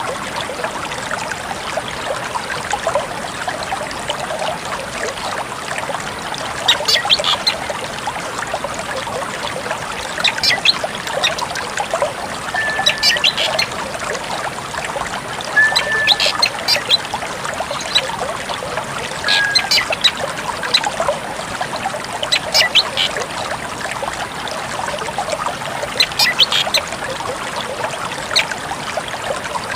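A drongo calling in short clusters of sharp, high notes every three seconds or so, with a few brief level whistles in the middle, over the steady rush of running water.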